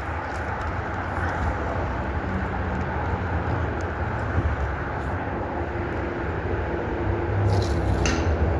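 Steady rumble of road traffic from a nearby highway, swelling slowly as a vehicle approaches, with a faint engine hum in the second half.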